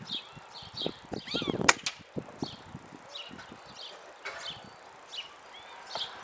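A single shot from a Benjamin Trail NP .22 nitro-piston air rifle: one sharp crack about a second and a half in, with birds chirping around it.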